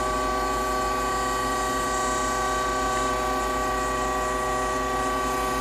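Citizen L16 CNC Swiss-type lathe powered up and idling: a steady electrical and mechanical hum with several fixed whining tones, unchanging throughout.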